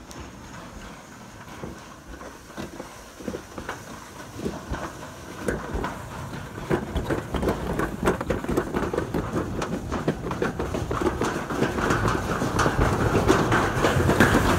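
Sled rattling and rumbling down a concrete slide chute: a dense clatter of small knocks over a rushing noise, growing steadily louder through the ride.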